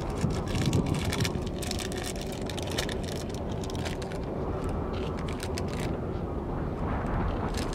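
Crinkling of a plastic Welch's fruit-snack pouch as it is torn open and handled, thickest in the first few seconds and again near the end, over a steady low rumble.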